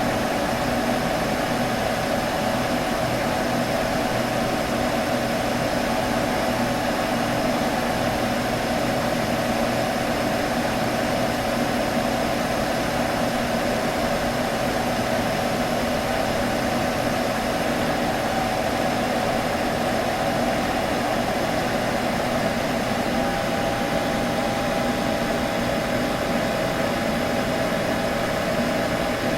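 Computer buzzing: a steady, unchanging hum of a few held tones over an even hiss.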